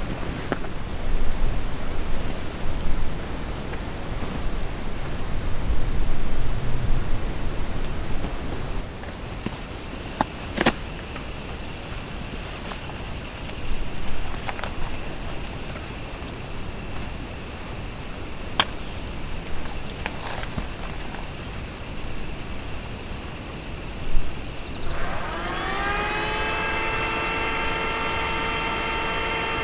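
A continuous high-pitched insect trill over low wind rumble, with a few sharp clicks. Near the end a small motor's whine rises quickly in pitch and then runs steadily.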